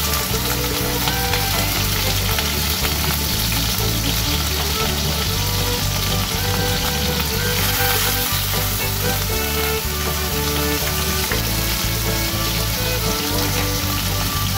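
Pork belly sizzling steadily in hot oil in a wok, turned now and then with a metal spatula, over background music.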